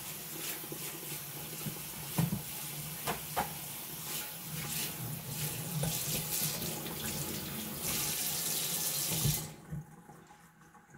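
Water spraying from a kitchen faucet's pull-down sprayer onto a metal baking pan in a stainless steel sink, rinsing it, with a few light knocks about two and three seconds in. The water shuts off about a second and a half before the end.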